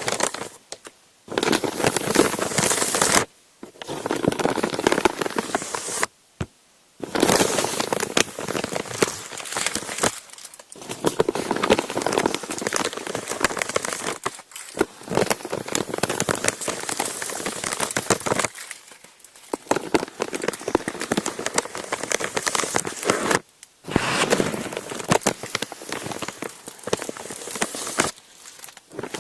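Parchment paper being crumpled and crinkled by hand in long bursts, with several short pauses in between.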